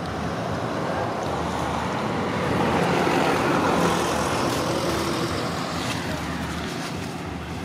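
A motor vehicle passing by, its noise swelling to a peak about three to four seconds in and then fading away.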